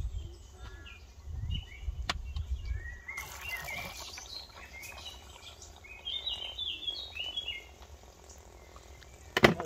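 Wild birds chirping and singing in short repeated phrases, with a low rumble under the first few seconds. One sharp click near the end is the loudest sound.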